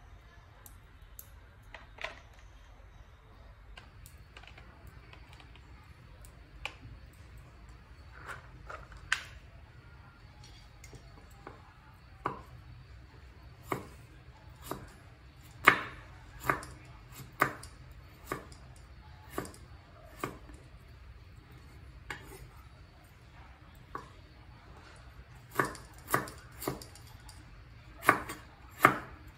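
Meat cleaver slicing a fresh root on a wooden chopping board: single sharp knocks of the blade striking the board, a second or so apart. The knocks come louder and closer together about halfway through and again near the end.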